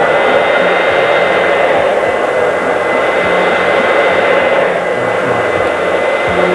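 Handheld hair dryer running steadily while blow-drying freshly cut hair: an even rush of air with a steady high whine.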